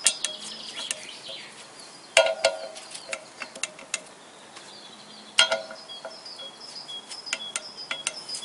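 Click-type torque wrench checking the clutch pressure-plate bolts: three sharp metallic clicks that ring briefly, about two and three seconds apart, each as a bolt reaches its set torque. Lighter ticks from the wrench's ratchet come between them.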